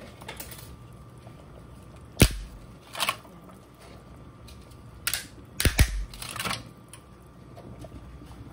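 Pot of lasagna noodles at a low steady boil, broken by about five sharp clicks and snaps. The loudest come a little past two seconds in and near six seconds.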